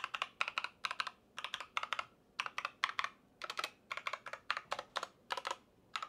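Keys being pressed on an E-YOOSO Z737 mechanical keyboard fitted with aftermarket 3-pin Jelly Yellow linear switches: short, sharp keystrokes in quick irregular runs of a few at a time, with brief pauses between runs.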